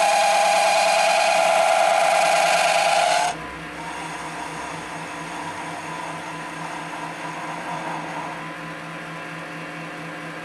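A CNMG-insert boring bar cutting in an MX-210V benchtop lathe, giving a loud, high squeal. The squeal cuts off suddenly about three seconds in, and the lathe keeps running with a quieter steady hum.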